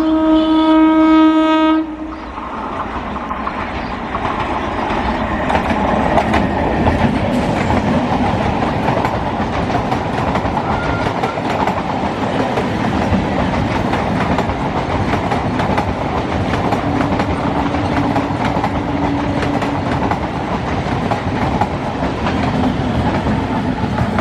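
Electric MEMU train's horn sounding one loud, long blast that ends about two seconds in, then the train running past at high speed: a steady rumble of wheels with rapid clicking over the rail joints.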